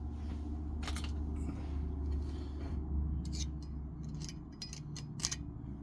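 Sharp metallic clicks and clinks from the parts of a double-barrel boxlock shotgun being handled: the barrels and forend iron being fitted and worked. There is one click about a second in and a cluster between three and five and a half seconds, over a low steady hum.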